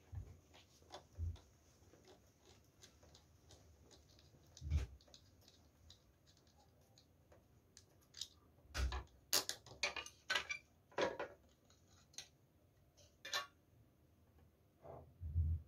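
Scattered clicks, taps and knocks of hands handling the metal terminal hardware and black plastic inner cover of an opened lithium iron phosphate battery, with a quick run of sharp clicks about halfway through and a duller knock near the end.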